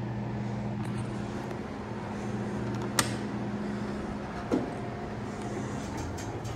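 Otis Series 1 hydraulic elevator's stainless-steel doors sliding open, with a short thud about four and a half seconds in. Before that comes a sharp click about three seconds in, over a steady low hum that stops just before the doors open.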